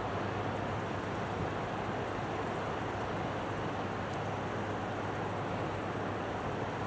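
Steady low hum and rushing noise of a container ship under way, with wind and water, even in level throughout.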